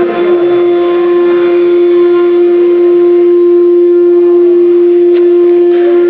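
CNC router spindle running at high speed with a loud, steady high-pitched whine.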